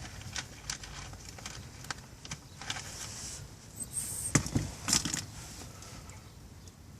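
Small clicks and rustles of hands handling wires and tools while working on wiring. Two louder knocks come about four and a half and five seconds in.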